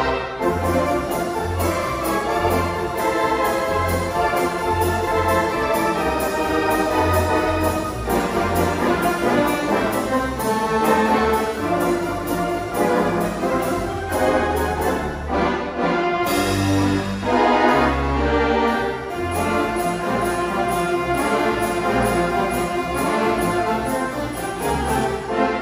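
Wurlitzer theatre pipe organ playing full chords over a pedal bass that sounds in a regular beat.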